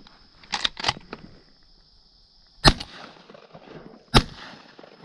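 Shotgun shots at ducks: two loud blasts about a second and a half apart near the middle and end, preceded by two fainter sharp reports in quick succession about half a second in.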